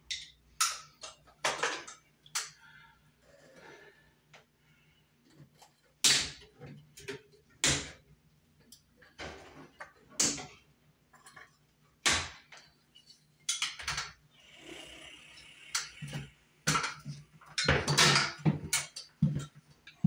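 Hand tools and wires clicking, clinking and scraping against a metal ceiling electrical box as pliers work the wires, in irregular sharp knocks. There is a stretch of scraping about two thirds through and a louder clatter near the end.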